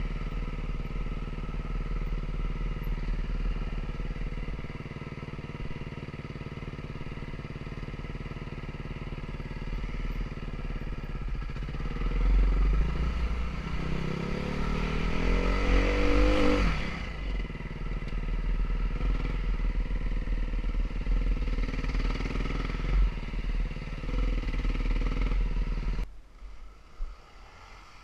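KTM ATV engine running along a dirt trail, with its pitch climbing in a long, loud rev through the middle before falling back. About two seconds before the end the engine sound drops off suddenly to a much lower level.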